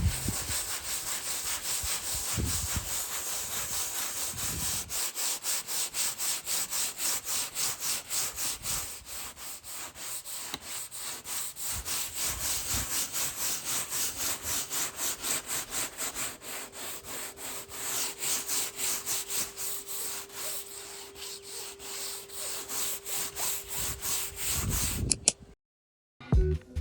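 Sandpaper rubbed by hand over a varnished painting on canvas in rapid, even back-and-forth strokes, scratchy and rasping; the strokes stop about a second before the end.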